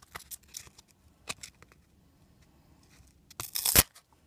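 Cardboard basketball trading cards being flicked through by hand: light scattered rustles and ticks, then a louder swish of cards sliding against each other about three and a half seconds in.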